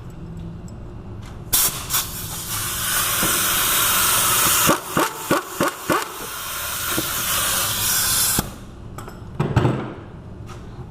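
Loud hiss of pressurised air, about seven seconds long, growing louder and then cutting off suddenly, with a quick run of sharp clicks about five to six seconds in.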